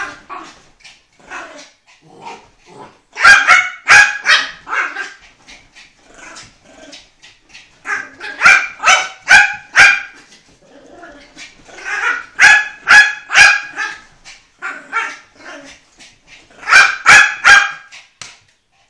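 Dogs barking in play: high-pitched, yappy barks in four bursts of several barks each, with quieter sounds between.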